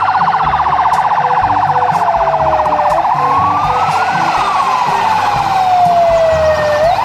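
Fire truck siren wailing, its pitch rising and falling slowly twice, with a fast warbling tone over the first half.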